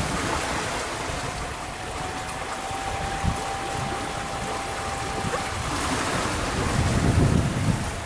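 Sailboat moving under sail: a steady rush of water along the hull mixed with wind, with gusts of wind buffeting the microphone more strongly near the end.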